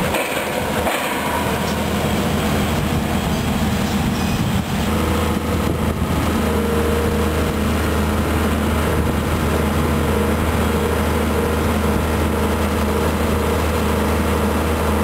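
Volvo EC210B excavator's six-cylinder diesel engine running steadily under load, with the rattle and clank of its steel tracks as it travels carrying an auger.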